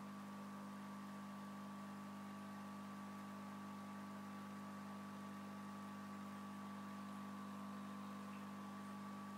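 Steady, unchanging electrical hum with a fainter high tone above it, typical of an aquarium filter pump running.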